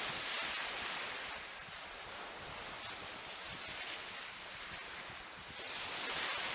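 Small waves breaking and washing up a sandy river-estuary shore, swelling loudest at the start and again about six seconds in, with wind buffeting the microphone.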